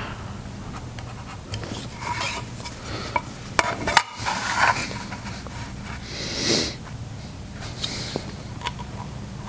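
A marking knife scoring end-grain wood along a steel rule: short, irregular scratching strokes with light metallic clinks as the knife and rule are handled, and one longer hissing scrape about two-thirds of the way through.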